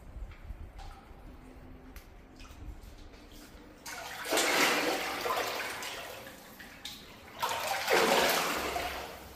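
Rushing, splashing water in a cave stream: two loud surges, the first about four seconds in and the second about three seconds later, each starting suddenly and fading over a second or two.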